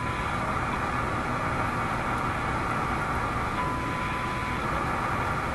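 Steady static hiss from an RCA A25 vacuum-tube shortwave radio's loudspeaker while it is tuned to a signal generator during shortwave band alignment. A short steady whistle sounds for about a second past the middle.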